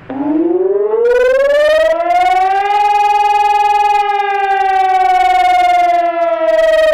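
Electronic high-performance civil-defence siren sounding the test-alarm (Probealarm) signal. Its tone starts abruptly, slides up in pitch over about two and a half seconds, then holds steady, sagging slightly near the end.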